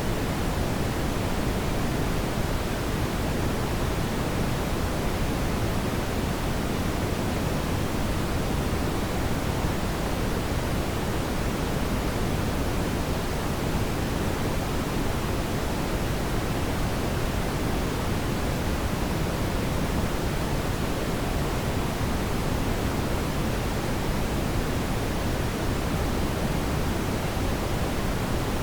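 Steady brown noise: an even, unchanging rushing hiss weighted toward the low end, with no tones or events.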